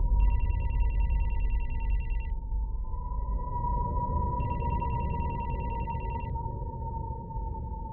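Mobile phone ringing in two bursts of about two seconds each, with a pause between, over a steady low drone.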